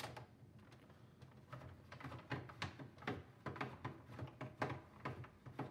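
Screwdriver turning a screw out of the plastic underside of a Tandy Color Computer 3 case: faint, irregular clicks and scrapes, several a second.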